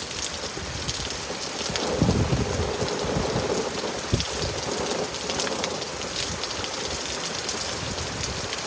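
Steady heavy rain from a hurricane rainstorm, with a low rumble about two seconds in and a short low thump about four seconds in.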